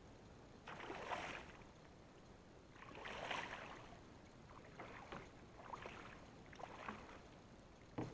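Water sloshing and splashing in separate bursts: two longer ones in the first half, several shorter ones after, and a sharp click near the end.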